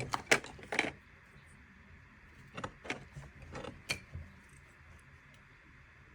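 Small plastic toy pieces being handled and set down: a cluster of clicks and taps in the first second, then more taps and a sharp click between about two and a half and four seconds in, over a faint steady hiss.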